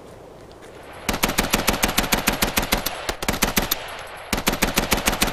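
Rapid machine-gun fire breaks in about a second in, roughly ten shots a second, in long bursts with short pauses between them.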